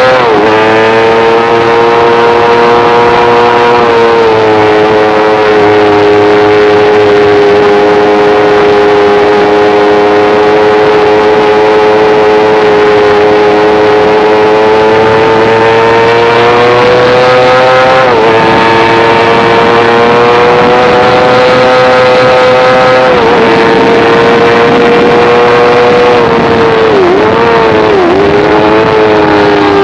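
Sportbike engine held high in the revs at full throttle on a race track, its pitch steady for long stretches and dropping sharply, then settling, at gear changes several times, over a constant rush of wind noise.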